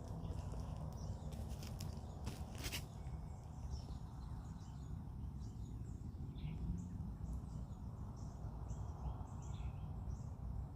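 A few faint, short bird chirps, scattered and sparse, over a steady low rumble of outdoor noise, with a brief cluster of rustling clicks about one to three seconds in.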